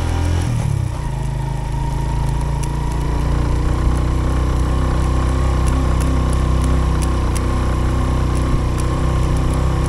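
Suzuki GS150's single-cylinder four-stroke engine pulling steadily in low gear up a steep, rough climb. Its pitch rises briefly about half a second in, then holds even.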